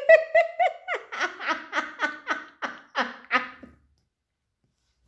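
A woman laughing: a run of about a dozen short laugh pulses, roughly three a second, that grow softer and stop a little past halfway.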